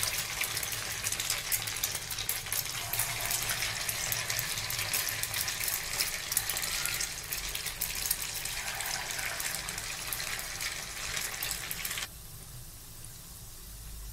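Maggi noodle pakora batter deep-frying in well-heated oil, a steady dense sizzle and crackle as handfuls are dropped in. About twelve seconds in the sizzle suddenly becomes much quieter.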